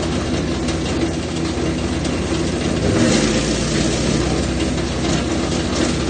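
Jansen GTS-1500E wood chipper's engine running steadily under load while it shreds eucalyptus branches, with a dense crackle of wood being chipped; the sound shifts and gets a little louder about three seconds in.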